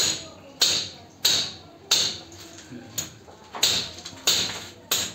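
Hammer blows on a chisel cutting into a masonry wall for concealed wiring. There are about nine sharp, evenly paced strikes, roughly three every two seconds, each ringing briefly, with two softer taps in the middle.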